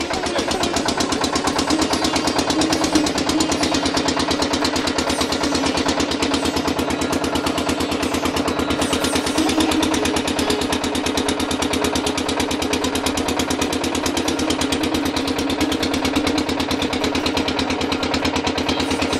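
Motor boat engine running at a steady speed, a fast, even chugging that does not change.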